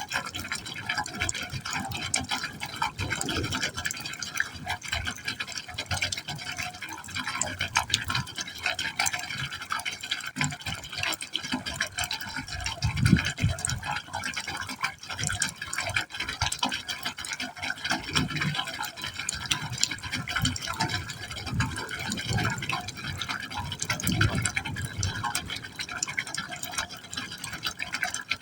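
Water falling into a pipe hole: a continuous splashing and pouring into the pipe, with uneven deeper surges every second or two.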